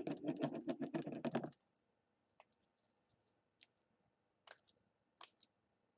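Blue glitter slime being squeezed and stretched in the hands: a quick run of wet clicks and pops for about a second and a half, then a few scattered clicks.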